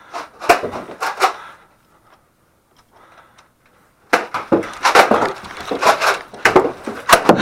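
Sharp knocks and clicks: a few in the first second and a half, then, after a couple of quiet seconds, a dense run of clattering knocks and bumps from about four seconds in.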